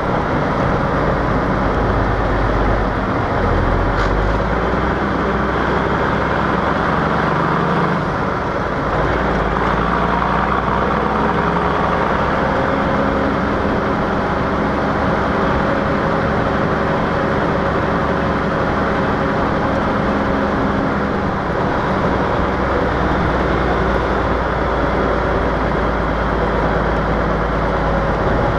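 Cummins 855 straight-six diesel of a 1952 Kenworth CD521 truck running under way through dual 7-inch exhaust stacks, with road noise. The deep exhaust note drops away for a couple of seconds about six to eight seconds in, then comes back and holds steady.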